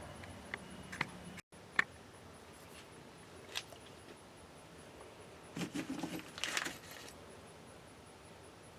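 Faint scattered clicks, then two short spells of light clatter a little past the middle, from parts or tools being handled.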